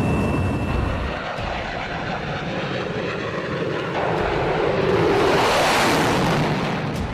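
Jet noise from a MiG-31 interceptor's engines in flight. It changes about four seconds in, swells to its loudest and hissiest around five to six seconds as the jet passes, then eases near the end.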